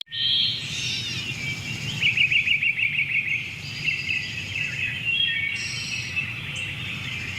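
Several small birds singing and chirping together, with a fast trill about two seconds in, over a low steady background rumble.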